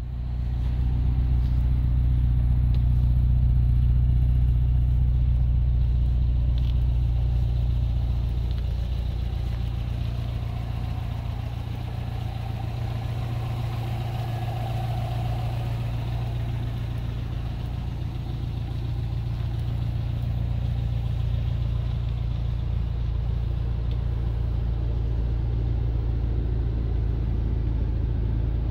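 Subaru Impreza WRX STI's EJ207 turbocharged flat-four idling steadily through a Genome aftermarket muffler, a deep low exhaust note. It dips a little in the middle and comes back up near the end.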